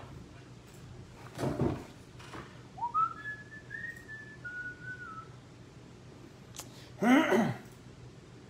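A person whistling a short phrase: one note sliding up, then a few held notes stepping up and down. A loud breathy burst comes about a second and a half in, and a short voiced sound falling in pitch near the end is the loudest moment.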